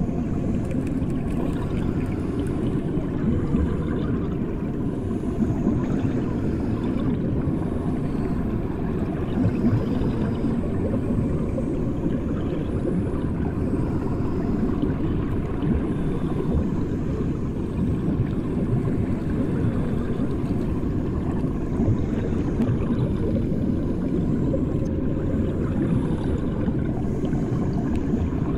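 Bathwater heard from under the surface, as with the ears under water: a steady, muffled low rumble with a few soft bumps.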